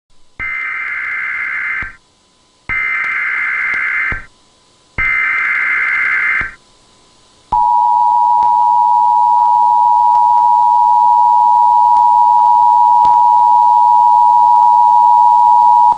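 Emergency Alert System header tones: three bursts of digital data noise, each about a second and a half long, then from about halfway through the steady two-tone EAS attention signal. This is the opening of a new alert.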